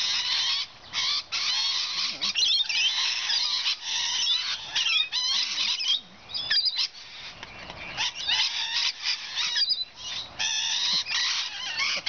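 A flock of rainbow lorikeets screeching and chattering, a dense stream of shrill calls with only a few brief breaks.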